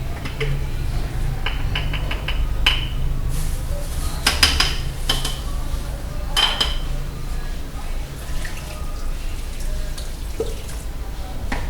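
Dishes and cutlery clinking as they are washed by hand: a run of sharp clinks, some ringing briefly, busiest about four seconds in, over a steady low hum.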